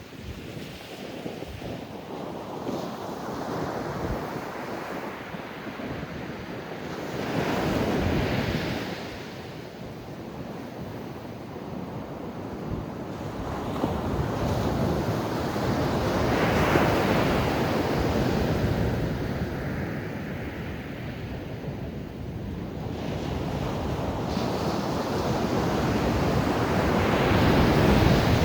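Atlantic ocean surf breaking on the shore in slow swells: three waves build and crash, about eight seconds in, about seventeen seconds in and near the end, with a steady wash of water between them.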